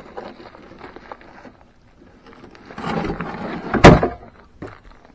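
A short scraping shuffle, then one sharp, loud thump just before four seconds in.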